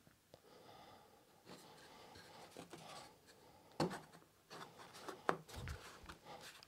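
Hands handling a thin wooden strip: soft rubbing and scraping as it is laid into a recess in the worktop and pressed into place, with three light knocks about four, five and a half and six seconds in.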